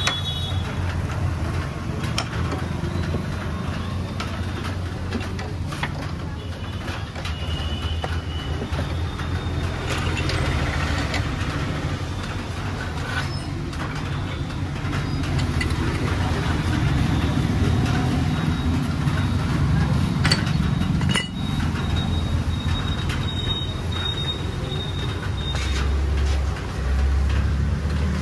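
Steady low rumble of vehicle traffic, with a few sharp metallic clicks as a long hex key tightens the rear axle bolts of an Ola S1 Pro electric scooter.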